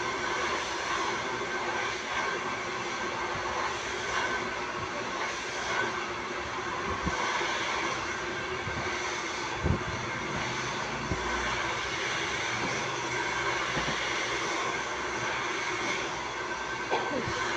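Hand-held hair dryer running steadily, its airflow a continuous even rush. A few brief knocks, the loudest about ten seconds in.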